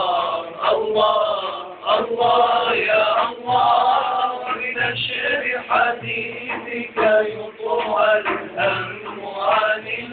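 Group of men singing an Arabic nasheed together in a chant-like melody, with a hand-held frame drum (daf) beating along.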